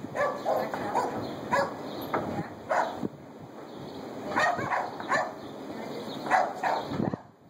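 A dog barking repeatedly, a string of short barks at uneven spacing that stops near the end.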